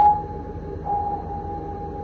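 Submarine sonar ping: a single high tone with a sharp start that rings on and fades, followed just under a second later by a softer returning tone, over a steady low background hum.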